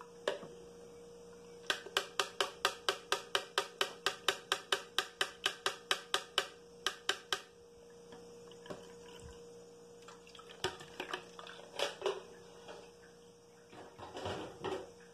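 Juice being strained into a glass: a run of quick, even taps, about four a second, on the small mesh strainer for several seconds, then a few scattered knocks and clinks as the strainer and blender jug are handled and set aside. A faint steady hum lies underneath.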